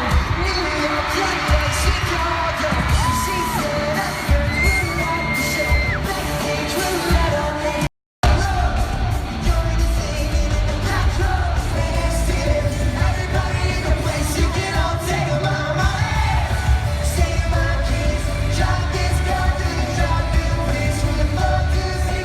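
Live pop-rock band playing with a sung vocal, loud, recorded from among the audience, with yelling from the crowd. The sound breaks off for a moment about eight seconds in at an edit, then the music carries on.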